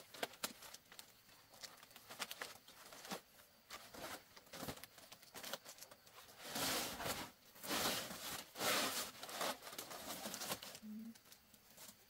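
Tearing and rustling handling sounds with scattered sharp clicks and snaps, and two longer tearing rustles about six and a half and eight seconds in.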